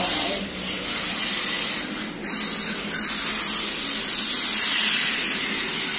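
WLtoys K989/K969 mini RC drift cars running on the track, heard as a steady high hiss of small electric motors and sliding tyres. It dips briefly about half a second in and again around two and three seconds in.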